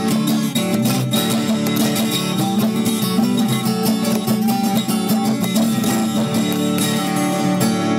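Background music led by plucked and strummed guitar, playing steadily.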